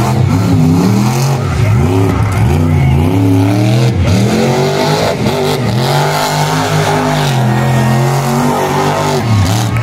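Monster truck engine revving as the truck drives across the dirt arena, pitch climbing and falling several times, then held high for a few seconds before dropping off just before the end.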